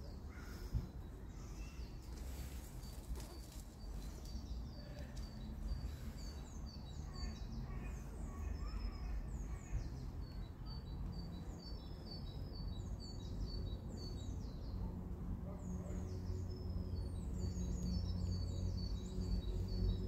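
Small songbirds chirping: many short, high, down-slurred notes, repeated over and over, above a steady low outdoor rumble. There are a few soft clicks in the first few seconds.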